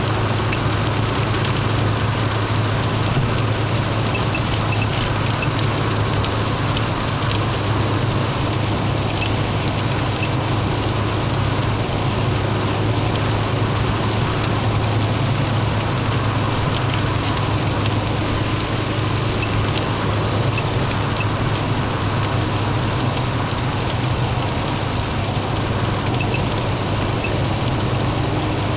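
Steady road noise inside a car cruising on an expressway: a constant low drone of engine and tyres under an even rush of wind and road noise.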